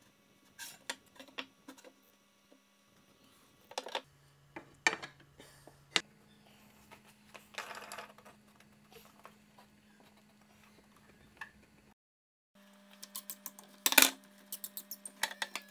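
Clicks, knocks and metallic clinks of a plywood glue-up: a plywood strip laid onto another, pipe clamps wound tight, and bar clamps slid on and snugged up. Near the end comes a quick run of clicks with one louder knock.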